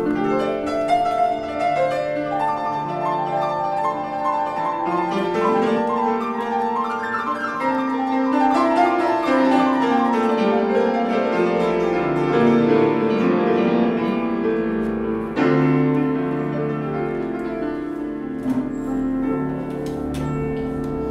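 Grand piano playing a classical-style passage, one note and chord after another, with a loud new phrase struck about 15 seconds in.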